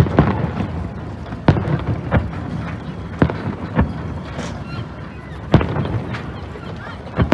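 Fireworks bursting overhead: sharp bangs at irregular intervals, about seven in all, the loudest about five and a half seconds in.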